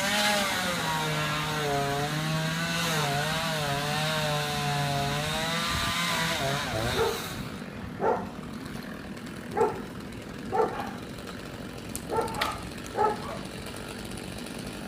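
Chainsaw running at high speed with its pitch wavering under load as it cuts the palm, stopping about seven seconds in. After it, a dog barks several times.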